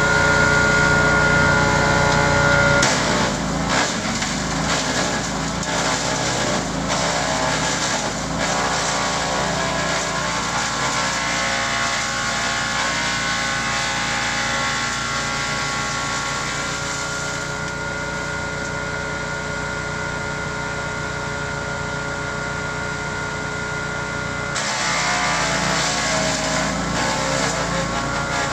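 Zakandra tracked wood chipper running at working speed. About three seconds in, fresh green branches start going through and the blades crack and shred them over the engine's steady note. The shredding eases off for several seconds past the middle and picks up hard again near the end.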